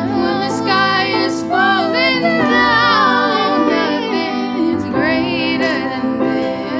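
A woman singing a slow melody with wide vibrato over instrumental accompaniment that holds steady chords underneath.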